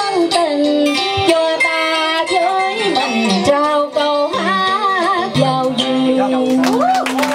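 Woman singing Vietnamese cải lương-style traditional song into a microphone, with wavering vibrato and sliding notes, over plucked string accompaniment.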